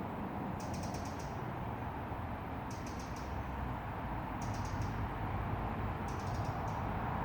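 Crumlin River flowing steadily through a wooded glen, a continuous rushing of water. Over it, a short burst of rapid high ticks repeats four times, about every one and a half seconds.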